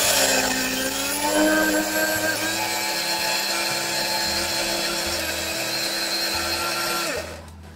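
Electric mixer grinder running, its blades grinding soaked rice dry in the steel jar. The motor's whine dips briefly under the load, then settles steady and higher; about seven seconds in it is switched off and winds down.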